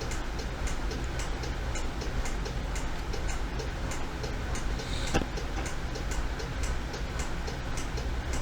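Computer mouse and keyboard clicking irregularly, about two to four clicks a second with one louder click about five seconds in, over a steady low hum.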